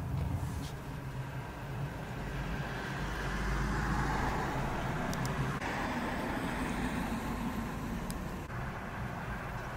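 Street traffic: road vehicles passing with a steady rumble, swelling as one passes close about four seconds in.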